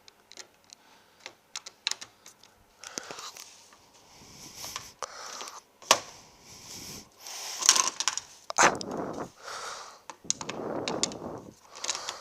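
Small plastic and metal clicks and scrapes from a car's exterior door handle being pulled and worked loose while a Torx screwdriver turns the bolt that holds it, with one sharp click about halfway through. From about eight seconds on come several longer rubbing or scraping stretches.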